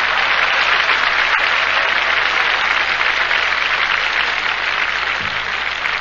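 Live audience applauding.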